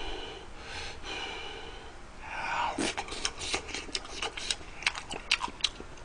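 Mouth sounds of a man eating tteokbokki in hot chili sauce with dumplings: soft breathing, a sharp intake of breath about two seconds in, then a quick series of wet chewing smacks and clicks.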